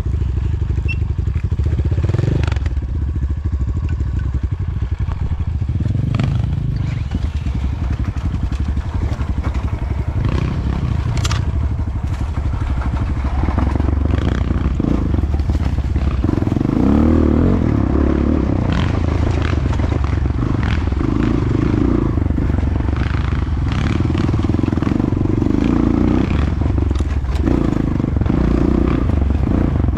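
Enduro motorcycle engine running continuously, with revs rising and falling more from about halfway through, and scattered clicks and clatter over it.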